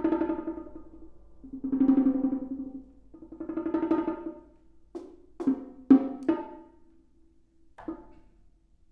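Solo percussion on drums: three rolls, each about a second and a half long, that swell and fade, then a few sharp single strokes that ring briefly.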